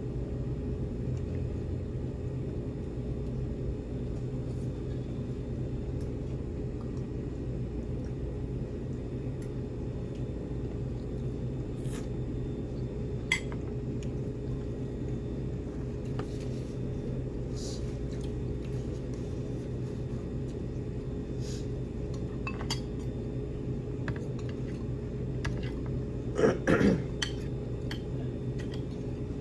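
Cutlery and dishes clinking now and then during a meal, over a steady low room hum; one sharp clink about halfway through and a brief clatter of several clinks near the end.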